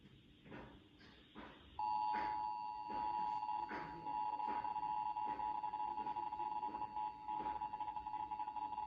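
Emergency Alert System attention signal: two steady tones sounding together in one loud, unbroken electronic beep. It starts suddenly about two seconds in, after a few faint clicks, and announces that an emergency alert, here a tornado warning, is about to be read.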